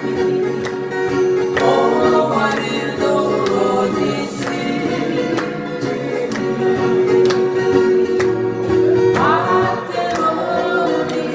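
A live acoustic band: several acoustic guitars strummed to a steady beat while the men sing together into microphones.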